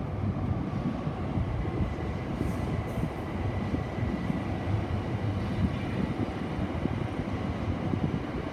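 Steady, uneven low rumble of outdoor noise, with a faint steady high whine from about two to six seconds in.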